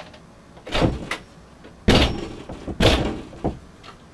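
Someone banging on a closed interior door: about four heavy blows, roughly a second apart, each with a short rattle after it.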